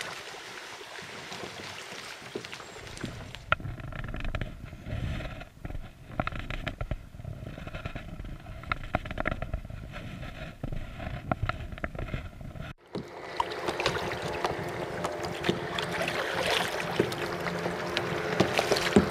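Kayak paddling on calm lake water: paddle blades dipping and splashing, with water lapping at the hull. The sound changes abruptly about two-thirds of the way through.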